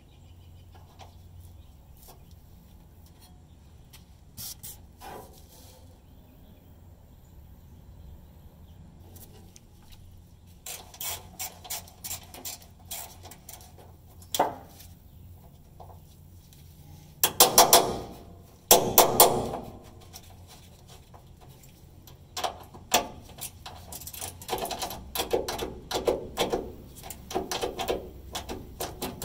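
Ratchet wrench clicking in short runs, with metal clinks and rattles, as the half-inch bolt of a ground wire is undone. There are two louder clattering bursts about two-thirds of the way through, then quicker clicking toward the end.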